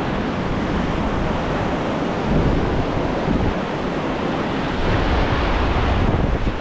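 Whitewater of a river rapid rushing steadily and loudly, with wind buffeting the microphone, heavier from about two seconds in.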